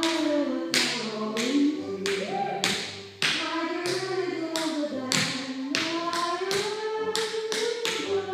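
Tap shoes striking a wooden floor in quick, uneven rhythmic steps, over music with a melody.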